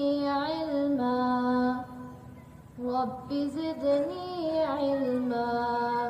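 A high solo voice chanting a slow melodic line in two phrases, with long held notes and a short break about two seconds in.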